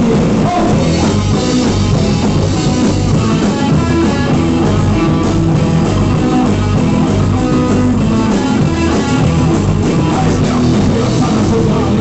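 Live rock band playing an instrumental passage: guitar and drum kit.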